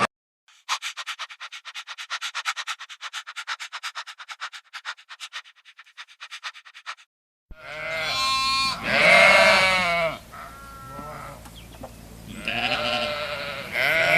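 A rapid rattle of short clicks, several a second, for the first half. Then a goat bleats in two long, wavering calls, the second starting near the end.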